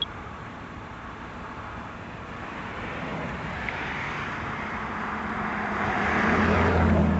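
Road traffic going past, with a vehicle's engine and tyres growing louder toward the end as it passes close by. A short sharp click right at the start.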